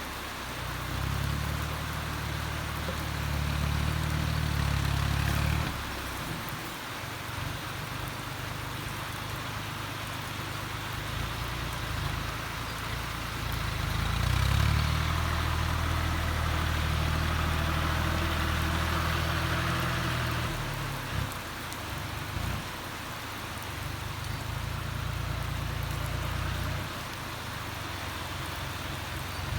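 Kubota diesel engine running under changing load, growing louder three times for several seconds each, under a steady hiss of rain.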